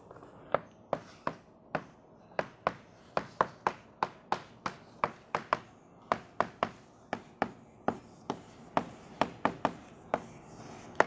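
Chalk writing on a blackboard: a quick run of sharp taps, about three a second, as each chalk stroke strikes the board.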